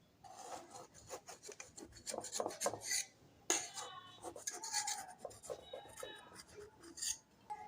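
A knife being run around the edge of a baked cake in its mould to loosen it for demoulding: quiet, irregular scraping and rubbing of the blade against the cake and the sides of the tin, with small ticks.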